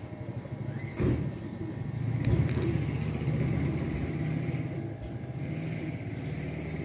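A motor vehicle's engine running nearby, a low steady rumble that grows louder about a second in and then holds. There are two brief knocks, about one and two seconds in.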